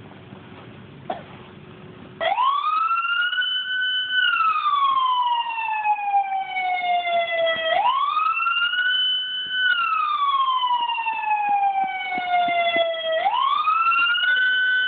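A wailing siren cuts in about two seconds in. Each cycle rises quickly, holds its top note for about two seconds, then falls slowly for about three seconds before rising again, about every five and a half seconds. Before it starts there is only a low, quieter background with a few clicks.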